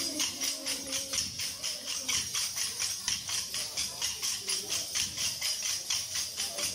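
Kolkali dance sticks clacking together in a steady rhythm, about three strikes a second, as the dancers strike each other's sticks.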